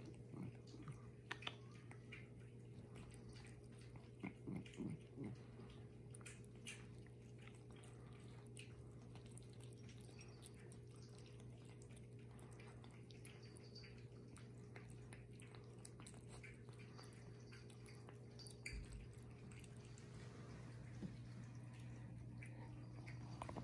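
Cat chewing and lapping wet food from a ceramic bowl: faint wet clicks and smacks, with a short run of soft low pulses about four to five seconds in, over a steady low hum.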